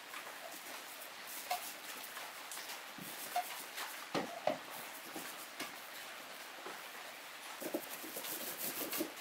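Paintbrush strokes scrubbing black paint onto a plywood speaker cabinet: irregular brushing scratches, with a few duller knocks of the brush and handle against the box.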